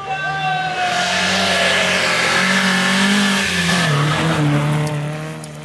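Historic rally car, a Volvo PV, passing close on a snowy stage: its four-cylinder engine pulling hard with the pitch falling steadily, over a loud hiss of tyres on snow. The pitch drops as it passes about four seconds in, then the sound fades.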